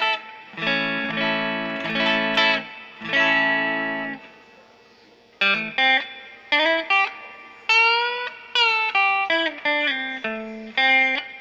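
Electric guitar through an amp on its middle pickup alone, a Wilkinson Vintage Voice Alnico V single coil in a Stratocaster-style guitar. A few strummed chords, a short pause about four seconds in, then a run of single notes with some bends.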